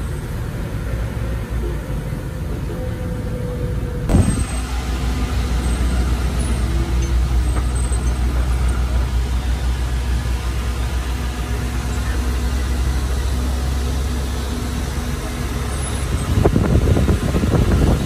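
Heavy diesel earthmoving machinery running steadily. A sharp knock comes about four seconds in, after which the low engine drone grows stronger and holds. A louder, noisy clatter comes in near the end.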